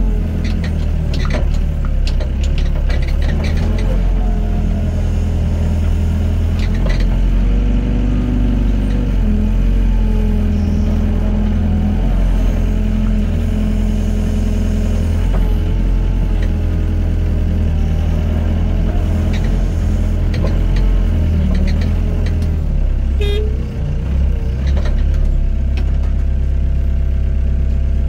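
Excavator's diesel engine running steadily, its pitch shifting up and down as the hydraulics take load while it digs and loads sand, with occasional short knocks.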